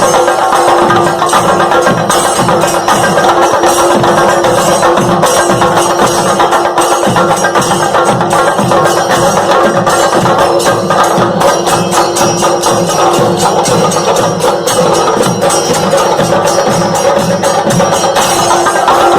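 Background music with busy, rapid percussion and a steady held tone.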